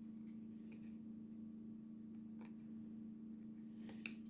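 Faint handling sounds of trading cards and packs, a few soft clicks spaced out, the loudest near the end, over a steady low electrical hum.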